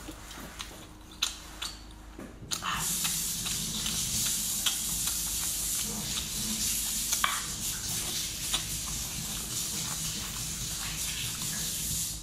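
Wet chewing clicks from a person eating braised octopus, then about two and a half seconds in a steady high hiss starts abruptly and runs on until it cuts off suddenly near the end, loud over the chewing.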